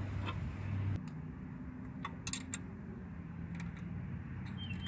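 A few light clicks and taps, from a wrench being set on the AC tensioner pulley's mounting bolts, over a steady low hum.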